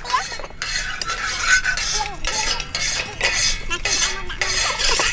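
Metal spatula scraping and stirring in a large wok of hot oil, in repeated short strokes, with a light sizzle.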